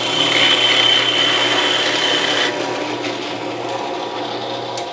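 Drill press running, a large-diameter bit boring into a wooden block with a high whining cut. About halfway through, the cutting noise stops while the motor keeps humming.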